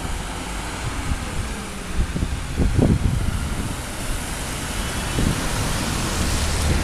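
Street ambience beside a wet road: a steady hiss of traffic, with gusts of wind buffeting the microphone in low rumbles, strongest about three seconds in.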